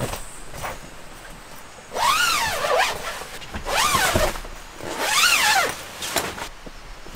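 Tent window zipper being pulled open, three long zips about a second and a half apart, each rising then falling in pitch, with the fabric flaps rustling between them.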